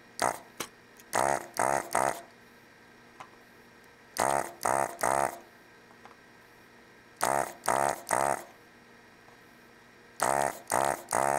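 Built-in vacuum pump of a Hakko FR-300 desoldering gun buzzing in short bursts as the trigger is squeezed, sucking molten solder off a chip's pins. The bursts mostly come in quick groups of three, about every three seconds.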